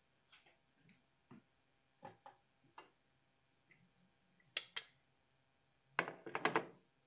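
Aluminum pressure canner lid being turned and lifted off, with light metal clicks and knocks, then a louder quick run of metal clinks about six seconds in as a metal jar lifter is handled.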